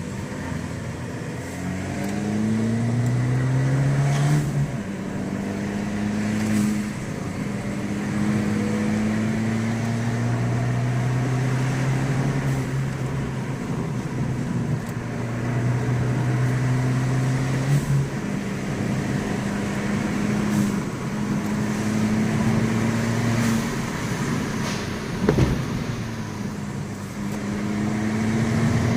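Abarth 595 Pista's turbocharged 1.4-litre four-cylinder engine, on its stock exhaust, pulling hard through the gears. The engine note climbs and then drops at each shift. A few sharp pops come in between, the loudest about 25 seconds in.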